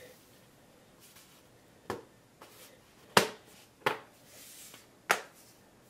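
Sharp clicks and knocks of an iPad being pressed into the hard plastic frame of a Clamcase keyboard case: four clicks over a few seconds, the loudest about three seconds in.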